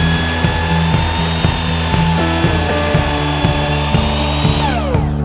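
Skilsaw 12-inch worm drive sliding miter saw's motor running at full speed with a steady high whine, which slides down in pitch near the end as the blade spins down. Background music with a steady beat plays under it.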